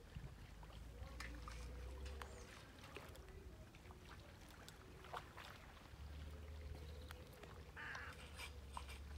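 Faint low wind rumble on the microphone that swells and fades, with a few scattered light clicks and ticks.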